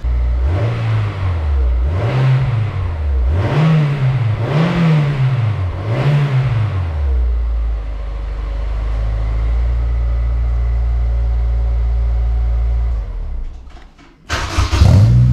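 Honda S2000's 2.0-litre four-cylinder engine on its stock exhaust, blipped five times in quick succession, each rev rising and falling, then settling to a steady idle. Near the end, after a brief drop, the engine is started again, louder, now through the Skunk2 Megapower cat-back exhaust.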